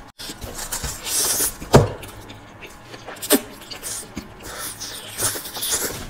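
Close-miked mukbang eating: hakka noodles being slurped into the mouth and chewed, with wet mouth noises and a couple of sharp clicks.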